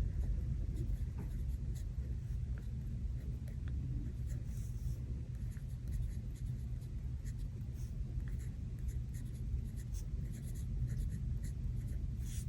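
Pen writing on planner paper, small irregular scratching strokes as a line of text is written out, over a steady low rumble.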